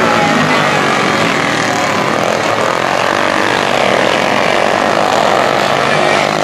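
Several dirt-track racing karts' small engines buzzing together as they race around the oval, their overlapping pitches rising and falling as the karts accelerate and back off through the turns.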